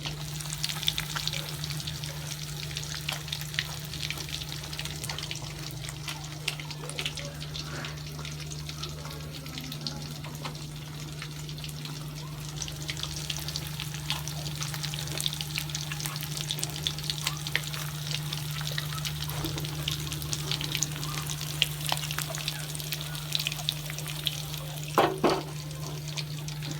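Food frying in hot oil: a steady sizzle full of small crackles and pops, with stirring, over a steady low hum. A brief higher-pitched sound stands out near the end.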